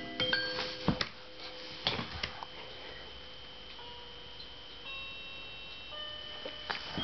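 Electronic toy piano notes, quick single tones at first, thinning out to a few long held notes. A few sharp knocks in the first two seconds.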